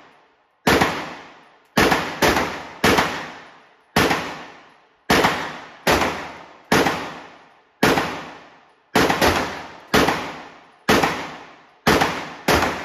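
Staccato P 2011-style 9mm pistol with a freshly ported barrel firing around fifteen shots, mostly about a second apart with a few quick pairs. Each report rings out in a long echo off the walls of an indoor range.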